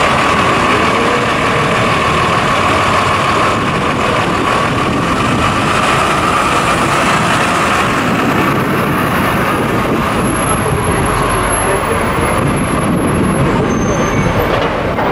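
Diesel engine of a Routemaster double-decker bus running as it drives slowly past close by, over a steady wash of city street traffic.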